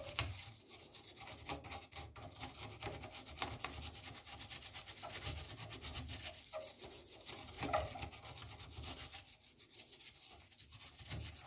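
Scrubbing and rubbing on the back of a circuit board wet with contact cleaner: quick, irregular scratchy strokes, with a couple of short pauses.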